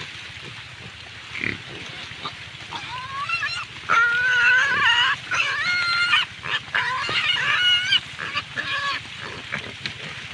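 Piglets squealing: a run of high-pitched squeals starting about three seconds in, loudest in the middle and tailing off near the end.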